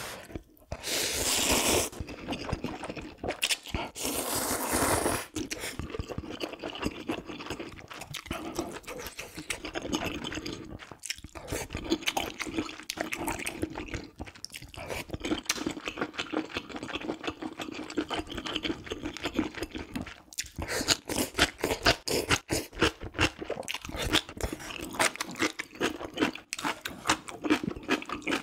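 Close-miked eating of spicy ramyeon: two long, loud slurps of noodles near the start, then steady chewing with many small wet clicks and crunches.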